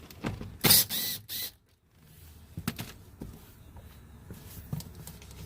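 Hand tools being handled while working on a car door: a loud rustling clatter about a second in, then scattered light clicks and knocks.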